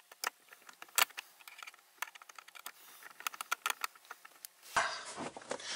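Hand screwdriver driving screws into the plastic glove-box frame of a car dashboard, making a run of small, irregular clicks and taps. Near the end a steady hiss comes in.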